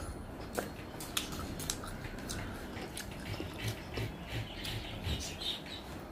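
Close-up eating sounds: wet clicks and squelches of rice being worked into chicken curry gravy by hand on a plate, with a steady closed-mouth chewing rhythm of about three chews a second in the second half.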